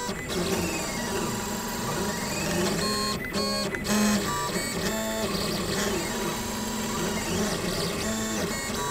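Gravograph M20 three-axis engraving machine running a diamond drag engraving job: its axis motors whine in tones that rise and fall as the head changes speed and direction, with a couple of brief breaks where the motion stops and restarts.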